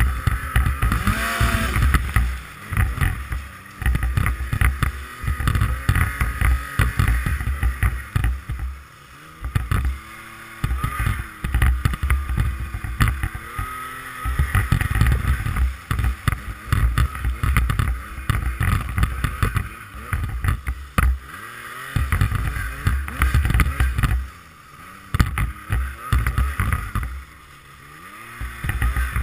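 Yamaha FX Nitro snowmobile's four-stroke triple engine under way through deep powder, its pitch rising and falling as the throttle is opened and eased off. It drops back to a quieter lull a few times, with wind buffeting the rider's helmet-mounted microphone.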